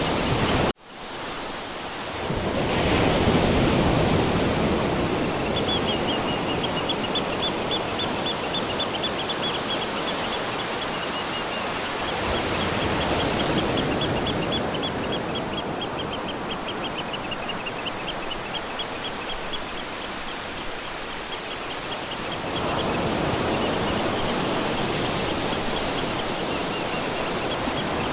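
Ocean surf washing ashore, the waves swelling and breaking every several seconds. A high, rapidly repeated chirping runs faintly through the middle. Just under a second in, the sound cuts out briefly.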